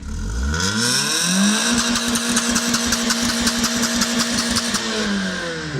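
16-valve car engine revved up, held at high revs for about three seconds, then let fall back toward idle.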